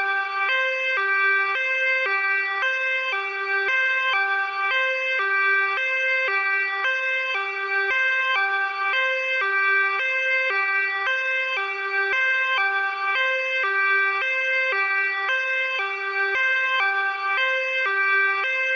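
European two-tone emergency-vehicle siren, designed as a sound effect, alternating high-low between two pitches at an even, rapid rate without a break. It stays at a steady pitch and level, medium close, with no approach or drive-by.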